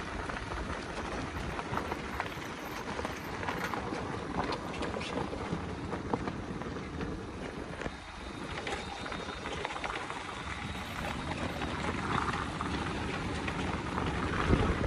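Wind rushing over the microphone and tyre noise from a motorbike rolling over a loose gravel road, with scattered crackles of stones and one sharper jolt near the end.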